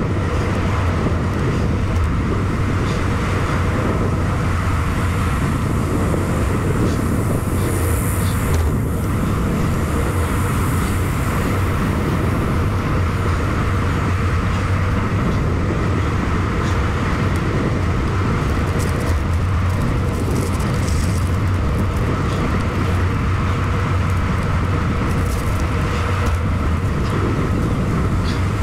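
Steady wind rush on the microphone with tyre noise from a bicycle riding along a paved path, an even, continuous noise with a strong low rumble.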